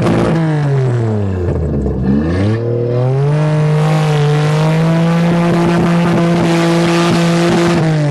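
Car engine revving, heard from inside the cabin: the revs fall back low about a second and a half in, climb again, and are held high and steady for about five seconds before dropping off at the very end.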